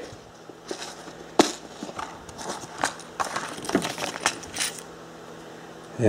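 Scattered clicks and knocks of a small hard-plastic parts case being handled and opened, the sharpest click about a second and a half in.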